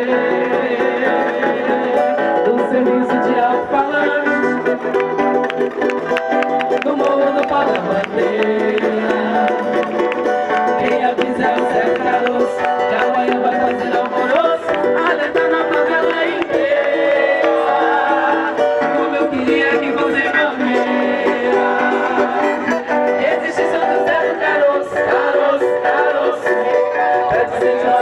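A live samba band playing, with plucked string instruments to the fore.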